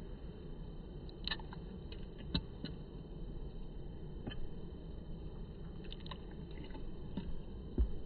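Steady low background noise of river water, with a scattered handful of short, faint drips and ticks and a soft thump near the end.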